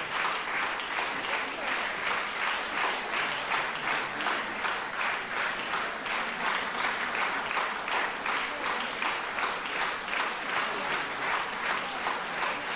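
Theatre audience applauding at a curtain call: dense, steady clapping with an even pulse of about three beats a second, as the hall claps in time.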